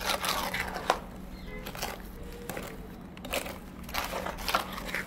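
Scattered scrapes and knocks over a steady low hum, typical of hand tools working wet mortar.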